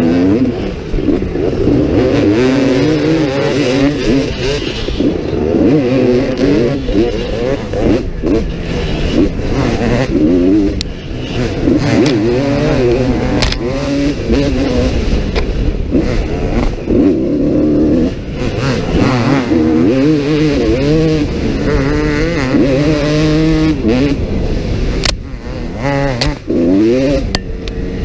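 Kawasaki KX250 dirt bike engine heard close up from the rider's own bike, revving hard and dropping back again and again as it accelerates and shifts through the gears. A few sharp knocks come through over the engine.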